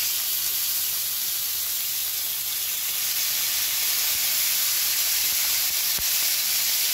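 Chunks of seasoned beef tenderloin sizzling steadily in hot oil in a frying pan as they are laid in to sear.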